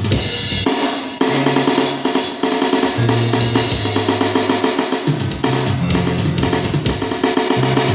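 Drum kit played in a fast, dense pattern of bass drum, snare and cymbals, over music with held low bass notes that change every second or so.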